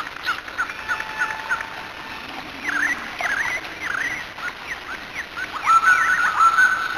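Many short, high squeaky animal calls, some swooping quickly up and down and some held briefly, over a steady hiss; they come thicker and louder in the second half.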